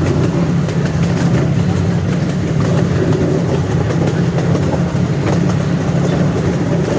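Amusement-park ride train running along its track: a steady low rumble, with faint clicks of the wheels on the rails now and then.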